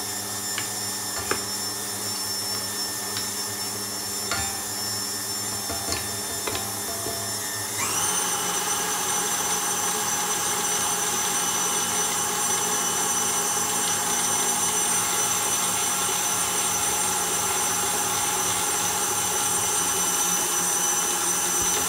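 KitchenAid Artisan stand mixer running with its dough hook, kneading a stiff flour-and-water wrap dough, with light clicks as a silicone spatula scrapes the steel bowl. About eight seconds in the motor steps up to a louder, higher whine and then runs steadily.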